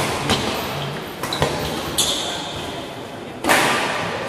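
Badminton rally in an echoing indoor hall: sharp racket-on-shuttlecock hits every half second to a second, with a high squeak about two seconds in and a louder hit about three and a half seconds in.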